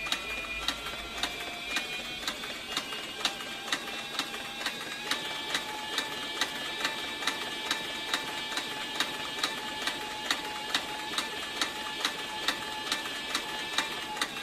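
Heavy-duty industrial leather sewing machine stitching a thick leather saddle skirt at a slow, even pace, knocking out about three stitches a second. A steady whine runs beneath and shifts pitch once about four seconds in.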